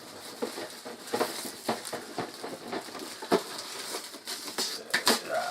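Cardboard box of plastic wargame scenery being opened and its contents handled: irregular clicks, taps and rustles of card and plastic.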